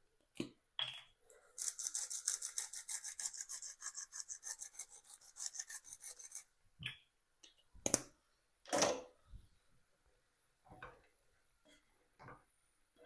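Hand pepper mill grinding: a fast, even run of rasping strokes lasting about five seconds, starting a second and a half in. A few separate knocks and clatters follow.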